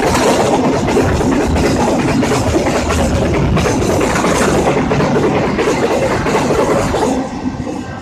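A train running through the station without stopping: a loud rush of wheels on rail with rapid clatter over the rail joints. It falls away sharply about seven seconds in as the last cars go by.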